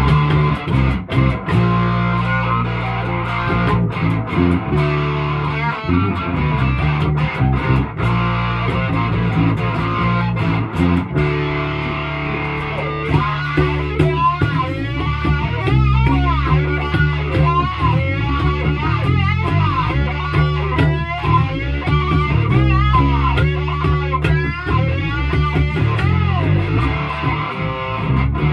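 Electric guitar and bass guitar playing rock together. From about halfway, a higher line with bent, wavering notes comes in over them.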